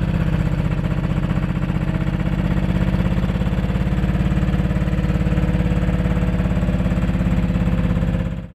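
Holder garden tractor's 12 hp Sachs two-stroke diesel running steadily under way, a fast, even engine beat. It cuts off suddenly at the very end.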